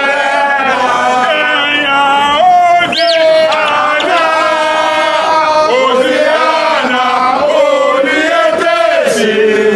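A group of football supporters chanting and singing together, loud and unbroken, with a brief high sliding cry about three seconds in.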